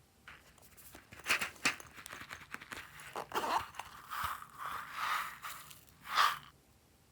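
Glossy slime being squeezed and stretched by hand, making sticky crackling, clicking and popping noises. The noises start shortly after the beginning and end with a louder pop just before the end.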